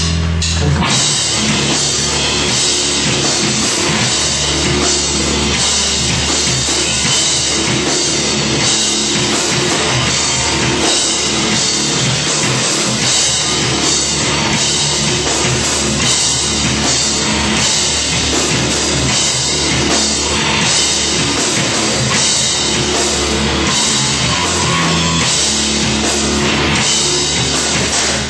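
Band playing loud rock music, a drum kit beating steadily under guitars.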